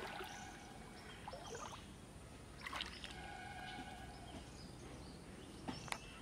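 Floodwater sloshing and lapping quietly around the legs of a man wading knee-deep, with a few short splashes: one about a third of the way in and a couple near the end.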